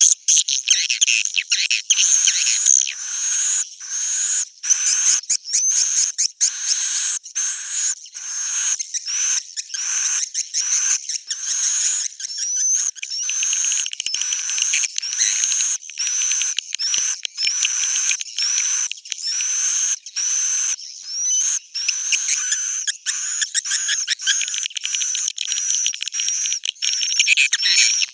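Swiftlet roosting ('inap') lure call: a fast, dense stream of high twittering chirps from edible-nest swiftlets, some sliding upward, broken by short gaps. This is the call played in swiftlet houses to draw the birds in to roost and nest.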